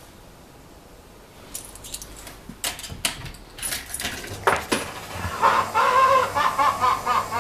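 Laughing-sailor arcade automaton laughing in quick repeated ha-ha pulses, starting about four and a half seconds in after a few scattered clicks and crackles.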